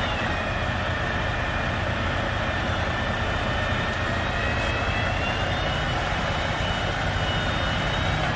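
Heavy machinery engine running steadily at a constant low hum, with a high whine that slowly drifts up and down in pitch.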